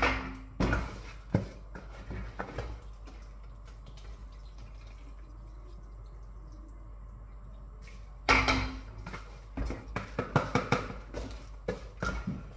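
Wet rice being spooned from a plastic bowl into a pot on the stove: spoon clinks against bowl and pot and soft wet plops. There are two louder noisy bursts, right at the start and about eight seconds in, then a run of quick clicks, over a steady low hum.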